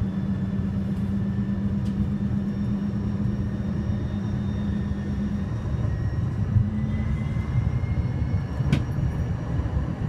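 Light-rail car running, heard from inside: a steady low rumble and hum, with a faint whine rising in pitch a little past the middle and one sharp click near the end.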